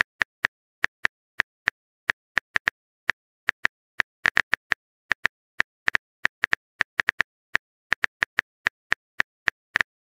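Virtual phone keyboard typing sound: a short, sharp click for each keystroke as a text message is typed, at a brisk, slightly uneven pace of about four a second.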